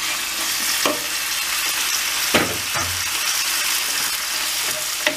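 Diced beef sizzling steadily as it sears in very hot oil in a cast-iron frying pan, stirred with a wooden spoon that knocks against the pan a few times.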